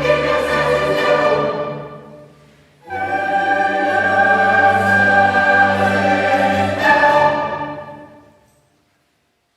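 Mixed choir and chamber orchestra sustaining chords in a Mass. The first chord fades about two seconds in. After a short gap a new chord is held, changes near seven seconds, and dies away to silence.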